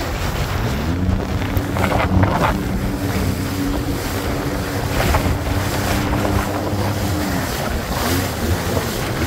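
Jet ski engine running on the water. Its pitch climbs as the throttle opens shortly after the start, holds steady, then drops near the end, over splashing water and wind buffeting the microphone.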